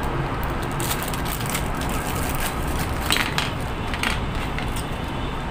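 Clear plastic zip bags of action-camera mounts crinkling and rustling as they are opened and handled, with sharper crackles about three and four seconds in, over a steady low background hum.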